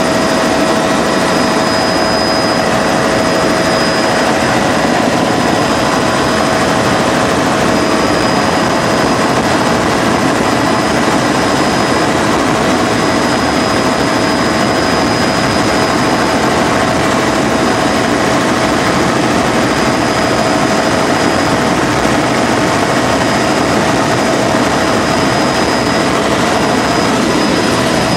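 Helicopter in flight heard from inside the cabin: a loud, steady rotor and engine noise with constant whining tones above it.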